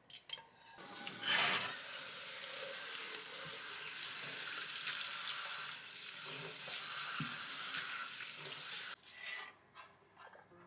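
Food sizzling and frying in hot oil while it is stirred, with a loud surge of sizzle about a second in, as if something hits the hot pan. The sizzle cuts off suddenly near the end, followed by a light clink.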